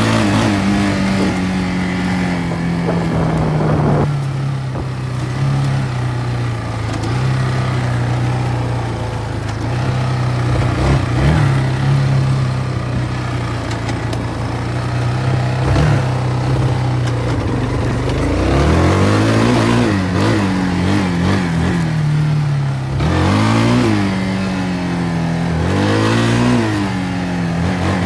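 Kawasaki ATV engine running under way on a trail. It holds a steady pitch for most of the first half, then revs up and down several times in the second half as the throttle opens and closes, with a couple of brief knocks around the middle.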